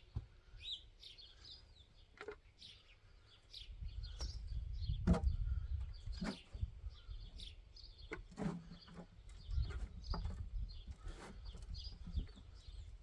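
Small birds chirping and twittering throughout, over scattered rustles and knocks of hands digging through compost in a bucket to pick out potatoes, with a low rumble from about four to six seconds in.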